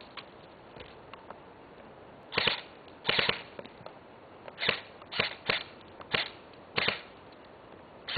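Airsoft rifle firing about eight short bursts of automatic fire, beginning a little over two seconds in, each a quick rattle of shots lasting a fraction of a second.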